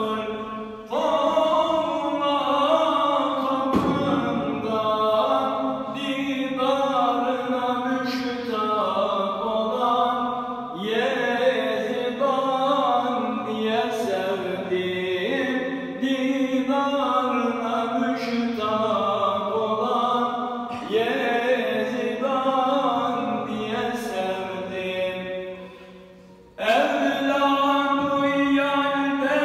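A solo voice sings a Turkish Islamic hymn (ilahi) in long, ornamented melodic phrases. Near the end one phrase fades away and a new one starts strongly.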